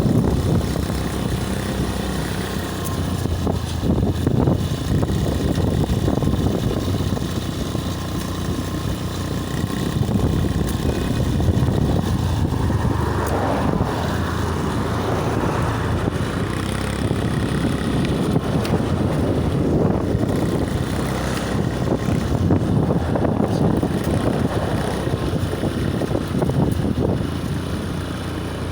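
Steady road noise with a motor vehicle's engine running.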